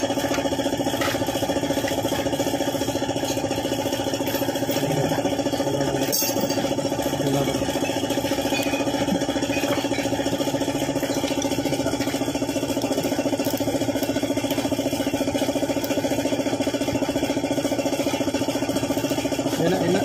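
Suzuki F6A three-cylinder engine idling steadily, with one brief click about six seconds in.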